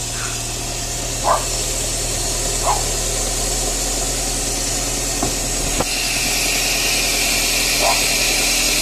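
A 2004 Toyota Vios's four-cylinder engine idling steadily, just jump-started from a portable jump starter after its weak battery failed to crank it on its own. A few short high squeaks and two light clicks sound over the idle, and its note shifts slightly about six seconds in.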